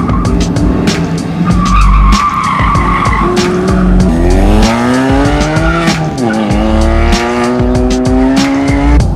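Cars being driven hard around an autocross course: engines revving and tires squealing through the cone turns. A squeal comes about two seconds in. Then an engine climbs in pitch under acceleration, drops around six seconds in, and climbs again.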